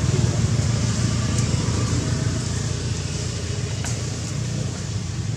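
A steady low rumble with a faint hiss above it and a few faint clicks.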